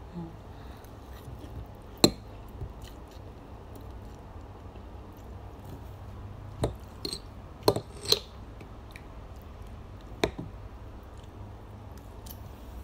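Fork and spoon clicking against a plate a handful of times while someone eats fried noodles, over a steady low hum.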